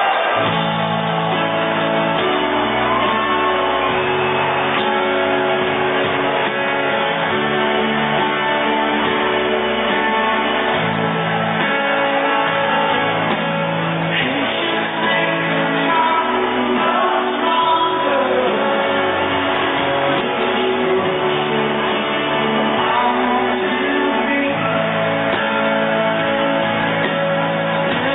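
A rock band playing live through a large PA, guitars to the fore, steady and loud.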